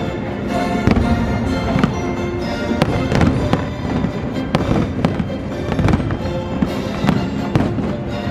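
Fireworks going off in a rapid, irregular string of sharp bangs and crackles, with music playing loudly at the same time.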